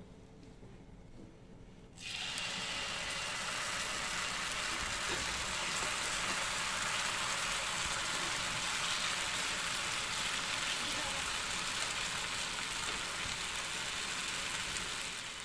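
Semolina and vegetable pancake batter sizzling in hot oil in a nonstick pan. The sizzle starts suddenly about two seconds in as the batter goes into the oil, holds steady, and dies down near the end.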